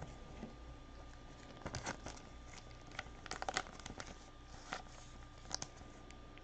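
Trading cards and their foil pack wrappers being handled: soft, scattered crinkles and clicks in short clusters, about two, three and a half and five and a half seconds in.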